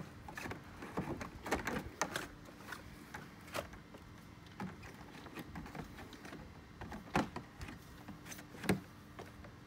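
Hollow vinyl fence pickets being slid out of the fence rails and stacked, giving light plastic knocks and clatters at irregular intervals, with the louder knocks about seven seconds in and near the end.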